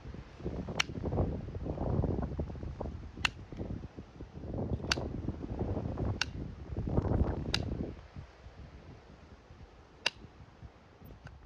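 Farrier's nail puller working the nails out of a worn horseshoe on a hoof: six sharp metallic clicks one to two and a half seconds apart, with rough grating as the tool levers between them, the grating dying down near the end.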